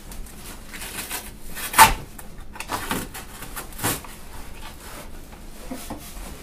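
Cardboard shipping box and foam packing being cut and worked with a knife: irregular scraping and rustling, with a sharp knock about two seconds in and a few smaller ones after.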